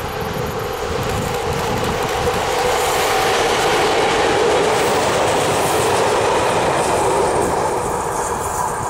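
SNCF BB 63500 diesel locomotive and its train of tank wagons passing close by, with a steady hum over the rolling rail noise. It is loudest about halfway through as the wagons go by, then eases off.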